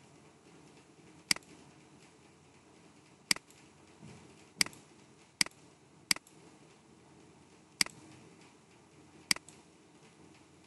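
Computer mouse button clicked seven times at uneven intervals, each a sharp click with a fainter release click just after it.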